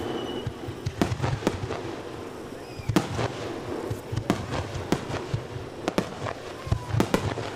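Aerial fireworks shells bursting in quick succession, a string of sharp bangs at uneven intervals, several close together.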